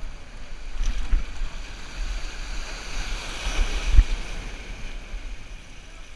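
Shallow ocean surf sloshing, swelling to a wave breaking in white spray against rocks and an inflatable kayak about three to four seconds in, with a dull thump at its peak. Low wind rumble on the microphone underneath.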